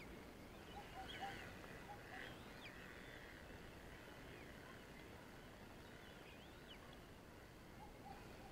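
Near quiet outdoor ambience with faint bird calls: short high chirps scattered through, and a few brief lower calls about a second in and again near the end.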